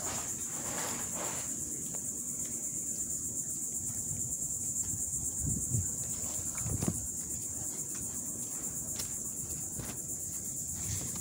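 A steady, high-pitched insect chorus with a fast, even pulse, from crickets or similar insects in the trees, running without a break.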